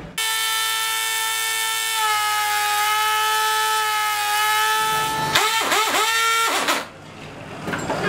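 Electric air pressure horn blaring a steady multi-tone chord for about five seconds, then breaking into three or four short wavering blasts that dip in pitch before cutting off sharply.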